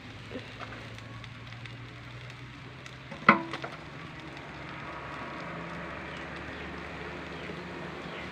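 A steady low hiss from the smouldering fire in a homemade tin-can chulha, with a few faint clicks and one sharp knock with a short ring about three seconds in.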